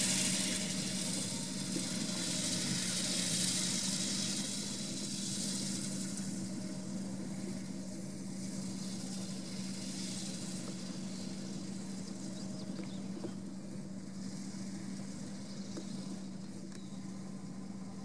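John Deere 6215R tractor's six-cylinder diesel engine running at a steady pitch under working load, slowly getting quieter as it moves away, with a steady high hiss over it.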